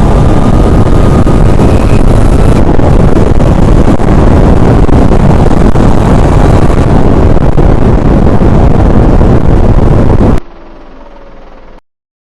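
Very loud, distorted rush of tornado wind and debris noise overloading the microphone. It drops suddenly about ten seconds in to a much quieter hiss, then cuts out.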